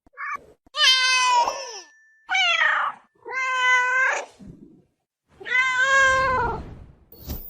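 Ocelot meowing: a short chirp, then four long, drawn-out meows with pauses between them.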